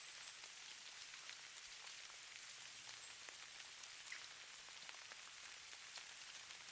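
Snow falling: a faint, steady hiss scattered with many soft tiny ticks as the flakes land.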